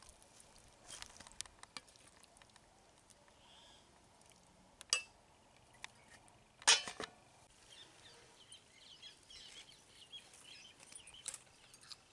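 A metal spoon clinking against a cooking pot and metal tray as curry is served: a handful of scattered sharp clinks, the loudest about seven seconds in.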